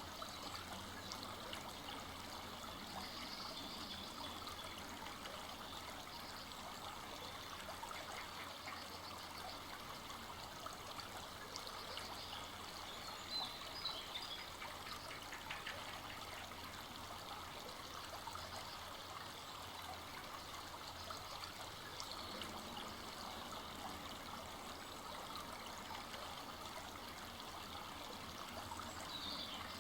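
Full-flowing forest brook running and trickling steadily over its bed. A few brief high chirps come through, the loudest about halfway through.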